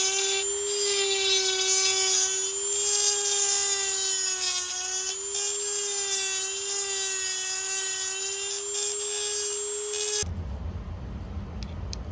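High-speed rotary tool whining steadily, its bit grinding the corners of a two-stroke bike engine cylinder's intake port, the pitch wavering slightly as it works. It cuts off abruptly about ten seconds in, giving way to a low rumble and a few light clicks.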